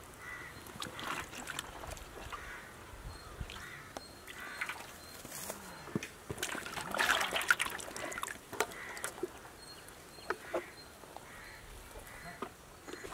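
Irregular light knocks and snaps of small eggplants being trimmed and handled by hand, with a louder flurry about seven seconds in. Birds call in the background.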